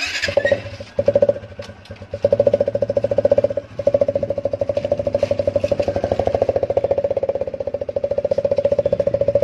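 TVS Apache RTR single-cylinder four-stroke motorcycle engine starting, then running with a fast pulsing exhaust beat. The silencer has an empty 7UP can taped on a stick at its outlet, a rig meant to make it sound like a KTM Duke. The beat is uneven for the first couple of seconds and dips briefly a little before four seconds in, then runs steadily as the bike pulls away.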